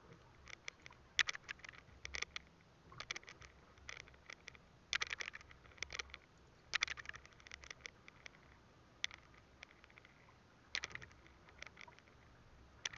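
Plastic wrapping crinkling and rustling as it is handled around a bottle, in short irregular runs of sharp crackles.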